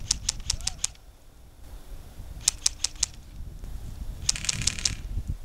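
Airsoft rifle firing three quick strings of sharp, clicking shots: about five in the first second, four more about two and a half seconds in, and a faster burst near the end.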